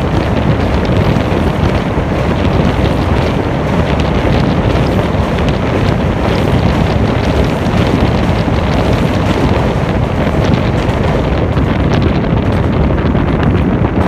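Wind buffeting the microphone over the steady running rumble and rattle of a DEMU train at speed, crossing a steel truss bridge, heard from an open door.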